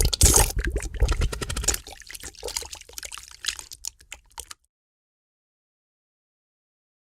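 A long, sputtering fart made of rapid pops over a low rumble, loudest at first and trailing off, then cut off abruptly about four and a half seconds in.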